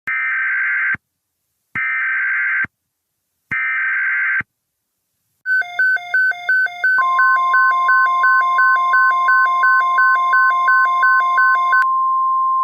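Emergency Alert System SAME header: three one-second bursts of buzzing digital data tones. Then a two-pitch alert tone switches high and low about three times a second, and a steady single-pitch Weather Radio alarm tone comes in under it. The two-pitch tone stops near the end while the steady tone carries on, announcing a Tornado Watch.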